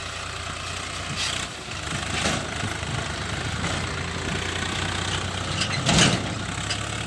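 Tractor engine running steadily while pulling a trailer across a soft, muddy field. A few brief louder rushing noises come over it, the loudest about six seconds in.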